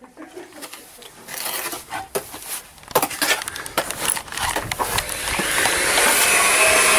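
Steel plastering trowel scraping and clicking against the hawk and the wall. About five seconds in, a steady machine noise builds up and keeps running.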